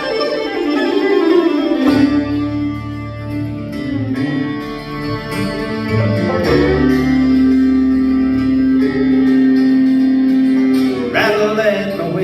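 A bluegrass band plays the instrumental intro to a song: plucked strings under long held notes, with low notes coming in about two seconds in.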